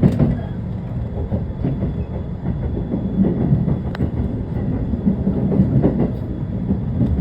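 Shonan-Shinjuku Line rapid electric train running on the rails: a steady low rumble with scattered sharp clicks, the sharpest about four seconds in.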